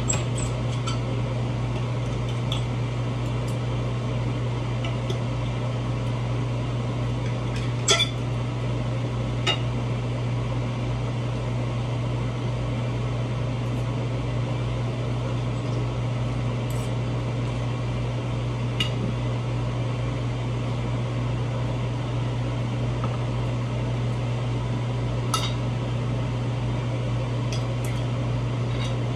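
Steady low hum of a kitchen appliance, with scattered light clinks and taps of a utensil against dishes and a baking tray, the sharpest about eight seconds in.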